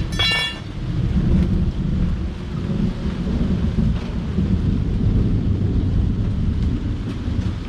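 Low, long rumble of thunder that swells about a second in and slowly eases off near the end, over steady rain. A brief high-pitched squeal sounds right at the start.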